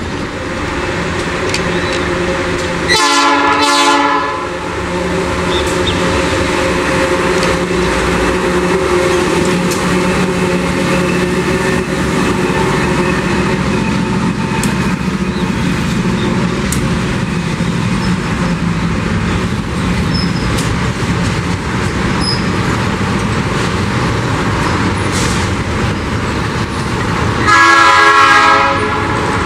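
Diesel freight train passing: the locomotives' engines running and the wagons rolling over the rails in a steady rumble. The horn sounds twice, a short blast about three seconds in and a longer one near the end.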